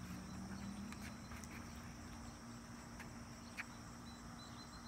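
Faint outdoor ambience of steady insect chirring, under a faint low hum. A few light clicks come through, the sharpest about three and a half seconds in.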